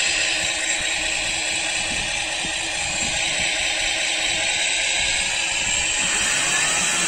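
Simulated boat engine sound from an RC model's electronic sound module, running steadily through a small speaker with a lot of hiss over a low rumble.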